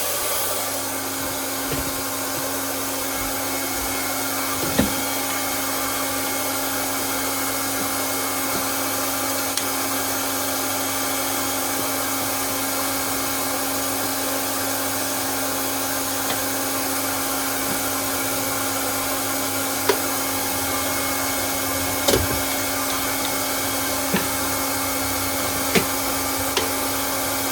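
A 1500-watt hot-air plastic welding gun running steadily with its heat turned down to zero, its blower giving an even hiss with a low hum. A few short sharp knocks come through it now and then.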